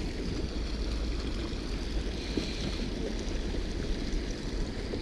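Steady rush of water pouring through a spillway into an open washout in the ice.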